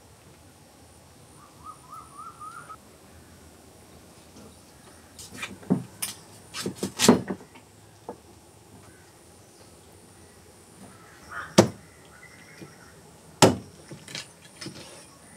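Cleaver chopping raw chicken on a wooden chopping block: a quick run of sharp knocks about five to seven seconds in, then two single loud chops later. A bird chirps briefly near the start.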